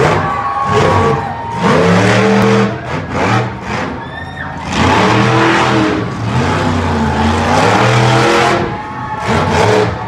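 Monster truck engine revving hard in repeated bursts, its pitch climbing and dropping as the throttle opens and closes.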